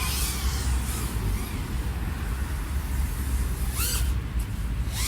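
A 3.5-inch FPV quadcopter (iFlight AOS 3.5 V5 on XING 1504 3100KV motors) in flight: a propeller and motor whine that sweeps up and down in pitch with throttle, over a heavy low rumble, with sharp throttle changes near the start and again about four to five seconds in.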